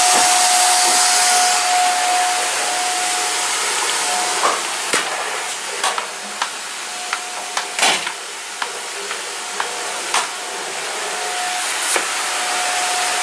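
Canister vacuum cleaner running steadily, a hiss with a constant whine, with a scattering of short light knocks from about a third of the way in.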